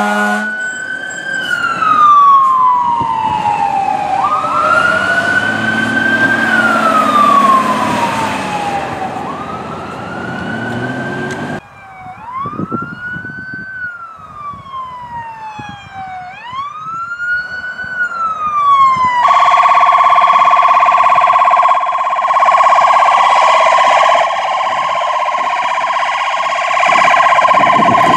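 Fire engine siren wailing, sweeping slowly up and down in pitch. About twelve seconds in, after an abrupt cut, a fire command SUV's siren wails in quicker up-and-down sweeps, then about nineteen seconds in switches to a rapid, steady warble.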